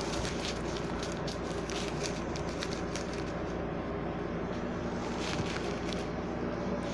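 Small plastic bags of acrylic crystal drills crinkling and rustling as they are handled, with faint scattered ticks, over a steady low hum and hiss.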